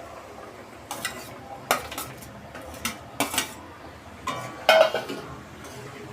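A metal spoon clinking and scraping against a cooking pot as paneer is stirred into a curry, with about six sharp ringing clinks, the loudest a little past the middle and near the end.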